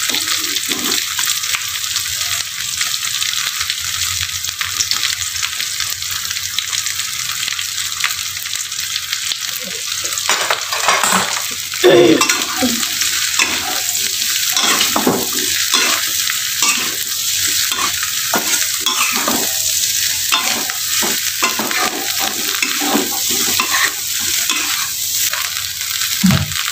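Tempeh pieces sizzling steadily as they stir-fry in oil in a wok. From about ten seconds in, a metal spatula stirs and scrapes them around the wok in many quick strokes.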